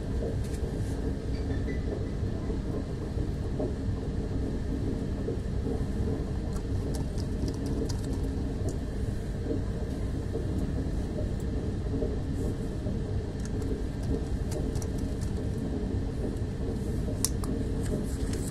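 Steady low rumble of background noise, even in level throughout, with a few faint light clicks now and then.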